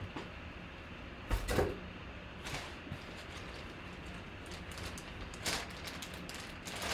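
A cloth drawstring bag being handled and pulled open, with brief rustles and bumps. The loudest comes about one and a half seconds in, and a smaller one a little before the end.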